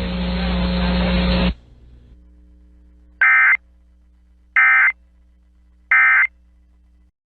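Emergency Alert System End-of-Message signal: three short, identical digital data bursts about a second and a quarter apart, marking the close of the test. Before them, a second and a half of broadcast hiss, and a faint low hum runs under the bursts.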